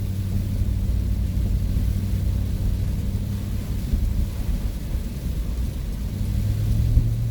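Ford van driving at road speed, heard inside the cabin: a steady low drone of engine and road noise.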